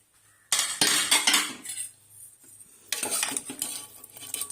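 Steel pressure cooker being opened and a spoon clinking and scraping against the inside of the pot, in two bursts of metal clatter: one about half a second in and another about three seconds in.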